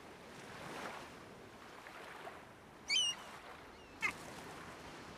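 Quiet dockside ambience, a faint even hiss of water and breeze, broken by two short high chirps about three and four seconds in.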